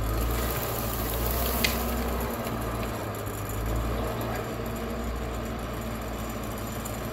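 Diesel engine of a 1979 International TD8G crawler dozer running in a steady low drone, with a crackling hiss over it and a single sharp snap about one and a half seconds in.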